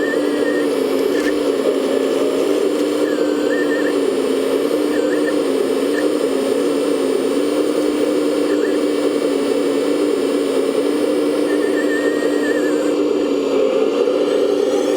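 Small electric motors and pumps of 1/14-scale RC construction models running: a steady hum with a higher whine that wavers and comes and goes as the machines work.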